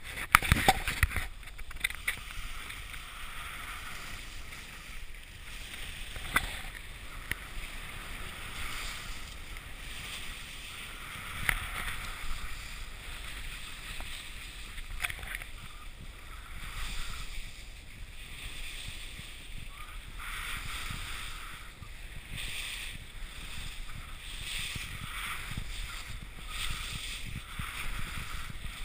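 Skis swishing and scraping over soft, sticky snow, muffled by a GoPro HD Hero's protective housing, rising and falling in swells. A few sharp knocks in the first couple of seconds.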